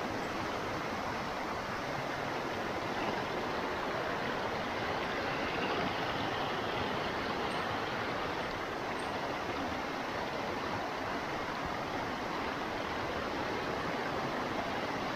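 Steady rush of a fast-flowing stream, its water gushing through and past a woven bamboo fish trap.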